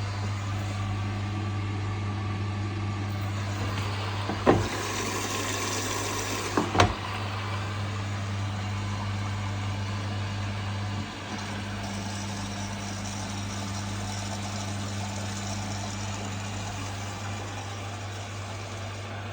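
Front-loading washing machine running early in a rapid wash cycle, a steady low hum. Two sharp clicks come about four and a half and seven seconds in, and the hum drops slightly about eleven seconds in.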